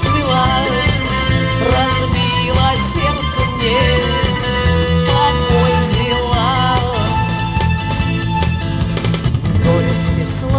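Instrumental break of a Russian pop-rock song: a lead melody with bends and slides over a steady drum-kit beat and bass.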